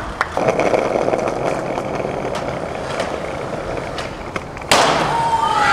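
Skateboard wheels rolling on concrete with scattered clicks of the board. About four and a half seconds in, a sudden loud slam as a skateboard lands a kickflip off a ledge, followed by a falling whine.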